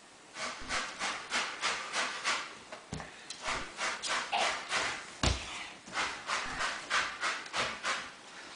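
Samoyed puppy at play with a toy on a string, making a steady rhythmic rasping about two or three times a second, with a couple of soft thuds along the way.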